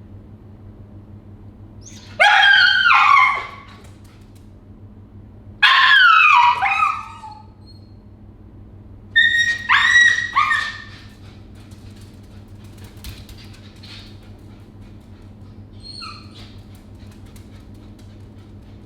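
A dog whining and crying three times, each a high cry about a second long that slides down in pitch, over a steady low electrical hum.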